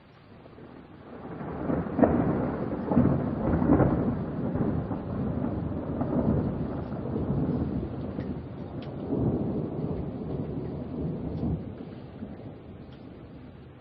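A long roll of thunder over steady rain. It swells about a second in, with a few sharper claps over the next couple of seconds, then keeps rumbling and fades away near the end.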